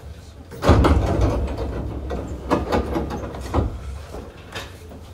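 Passenger doors of a Hankyu 8000 series electric train working at a station stop. A sudden loud clunk comes about half a second in and fades over a couple of seconds, and a few smaller clunks and rattles follow.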